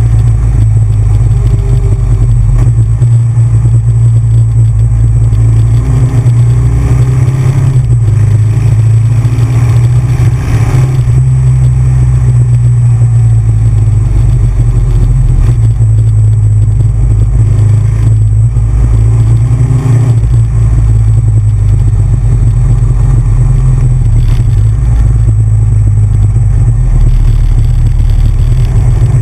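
Big Bear Choppers custom V-twin motorcycle engine running loud under way on the road, its note rising and falling a few times with the throttle.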